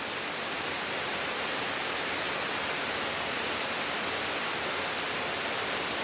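Steady, even rush of a waterfall spilling into a creek pool.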